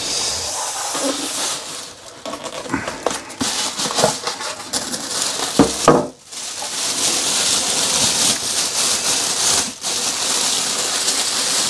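Thin clear plastic bag crinkling and rustling as it is pulled off a PC case, with a few light knocks about halfway through as the polystyrene packing is set aside.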